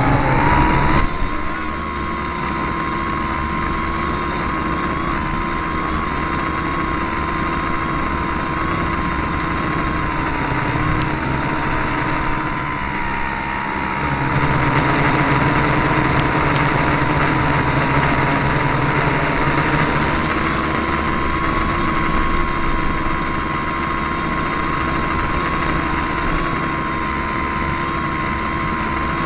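Tricopter's three brushless electric motors and propellers whining, heard close up from the camera on its frame. The whine rises to a steady pitch about a second in and then holds, wavering slightly as the craft flies. The propellers are unbalanced, by the builder's account.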